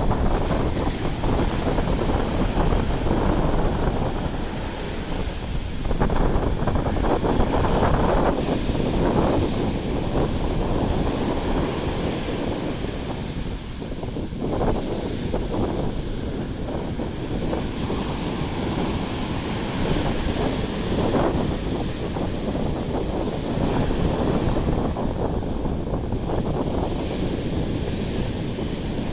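Sea waves washing onto a beach, swelling and easing every few seconds, with wind rumbling on the microphone.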